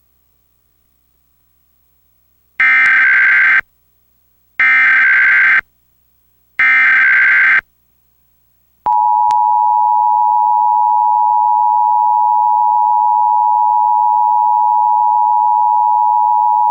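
Emergency Alert System National Periodic Test on cable TV: three one-second bursts of SAME header data tones a second apart, then the steady two-tone EAS attention signal for about eight seconds, cut off sharply at the end. The data bursts carry the coded alert header, and the attention tone announces the test message to follow.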